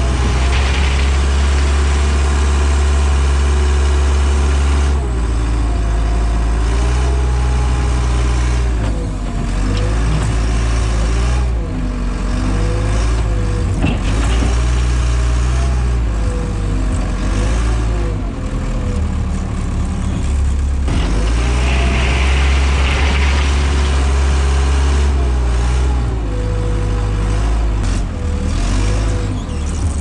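Telehandler diesel engine running under load, its pitch rising and falling again and again as the throttle is worked while the machine drives through snow.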